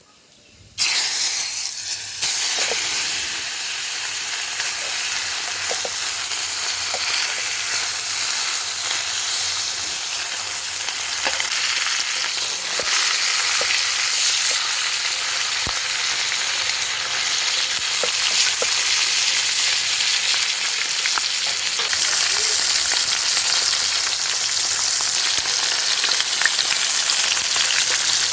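Whole fish going into hot cooking oil in a pot. A sizzle starts suddenly about a second in and carries on as steady deep-frying, with scattered pops from the oil.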